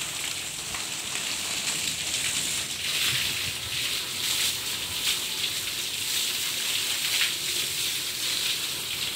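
A stream of water pouring down and splashing onto a wet concrete floor, a steady hiss of running water. The roof slab is being soaked before plastering.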